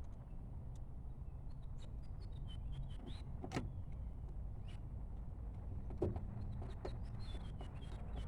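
Small clicks and knocks of hands handling the interior door-handle parts and panel of a car door, with two louder knocks about three and a half and six seconds in, over a steady low rumble.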